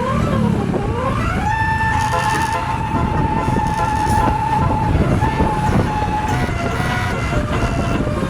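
A bus's basuri musical horn playing: a note that slides up and down, then a long steady high note held for about three and a half seconds, followed by shorter notes at changing pitches. A low engine rumble runs underneath.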